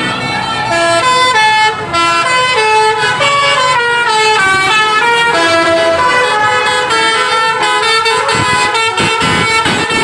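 Musical 'telolet' basuri multi-tone bus horns playing a melody, several horn tones sounding at once and stepping up and down in pitch note by note. A rapid low throbbing joins about eight seconds in.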